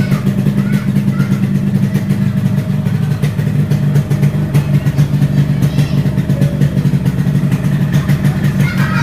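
Yamaha RX-King motorcycle's two-stroke single-cylinder engine idling steadily.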